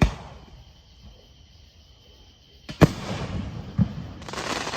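Fireworks going off: a sharp bang right at the start, another about three seconds in followed by a smaller pop, then a burst of crackling near the end.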